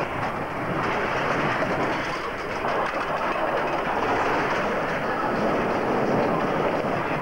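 Ben Schiff Wild Mouse roller coaster cars running along their steel track, a steady noise of wheels on the rails.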